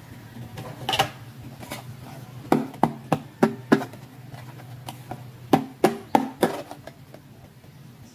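Hard plastic toy handbag being handled: about ten sharp plastic clicks and taps, most in two quick runs in the middle, over a steady low hum.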